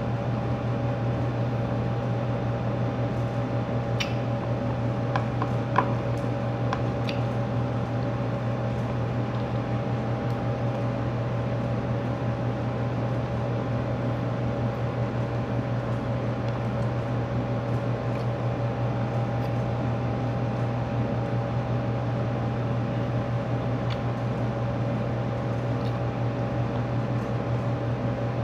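Window-type air conditioner running with a steady hum. A few small clicks come about four to seven seconds in.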